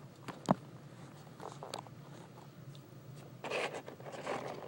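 Small plastic toy building pieces being handled and set down, with a sharp plastic click about half a second in and softer clicks and rustling after.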